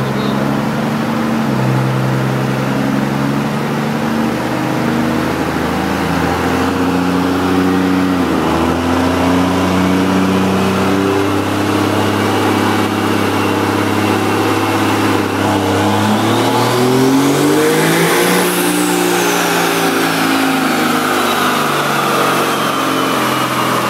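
Cummins inline-six turbodiesel in a Ram pickup doing a dyno pull. The engine revs up under load through several gear changes, its pitch climbing and dropping back at each shift, then climbs steeply to a high whistle that peaks about three-quarters of the way through and falls away as the revs come down.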